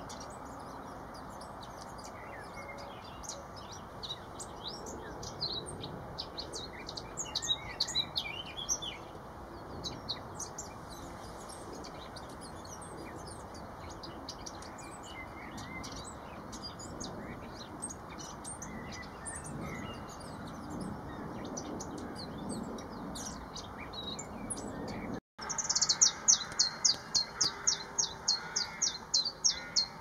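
Eurasian blackcap singing in short warbling phrases, busiest in the first third, with other small birds chirping around it. After a cut about 25 seconds in, a leaf warbler sings a fast run of evenly repeated high notes, about five a second, the loudest part.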